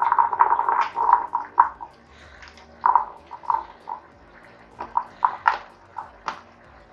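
Boiled green peas being tipped and spooned into a pot of stew: a dense run of short wet plops in the first two seconds, then scattered plops and a few sharp taps.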